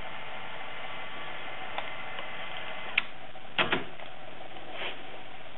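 AKAI GX-F66R cassette deck's transport mechanism over a steady hiss with a faint whine: a sharp click about three seconds in, after which the whine stops, then a quick double knock and a softer click near the end.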